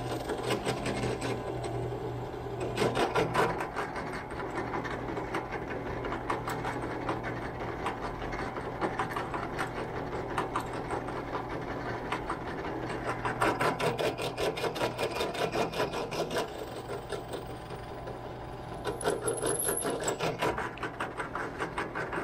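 Bench drill press running, its bit boring holes through clamped plywood: a steady motor hum with a fast rattle of the cutting, louder in spells.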